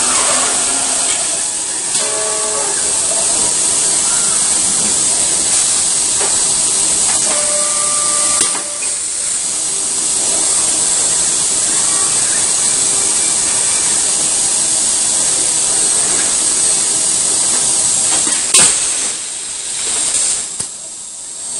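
Robotic car-body assembly cell running: a loud, steady hiss with faint short whining tones from the industrial robots. There are two sharp clacks, one about eight seconds in and one near the end, and the hiss drops away in the last seconds.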